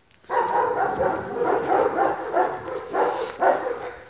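German shepherds in kennel enclosures barking: a dense, continuous run of overlapping barks that starts about a third of a second in.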